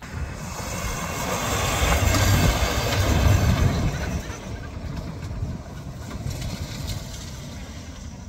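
Van engine running and revving as the van drives off across gravel, loudest a couple of seconds in, then easing off as it moves away.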